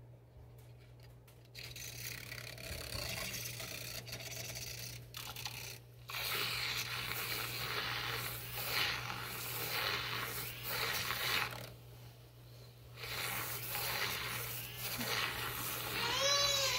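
Handheld battery milk frother running in a mug of coffee, whisking in creamer that has not yet blended, with two short pauses along the way.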